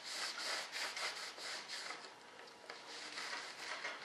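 A cloth rubbing back and forth over a foam rudder plug in quick strokes, a few a second, softer in the second half.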